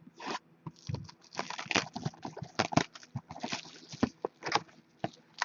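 Hockey card box and foil packs being torn open and handled: a quick, irregular run of crinkles, tears and light taps.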